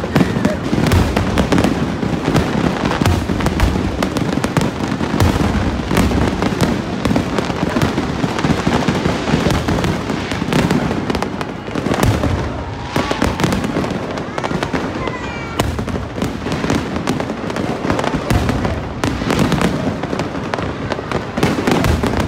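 Aerial fireworks display: a continuous, rapid run of bangs and pops from shells bursting overhead, with no let-up.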